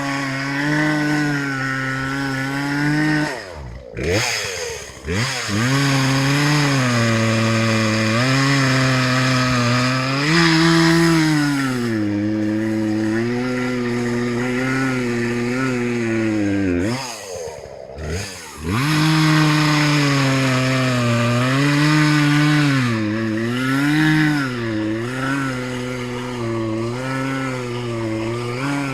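Chainsaw engine running under load as it cuts into a tree, its pitch sagging and recovering as the chain bites. Twice, about four seconds in and again around seventeen seconds, it drops off briefly and revs back up.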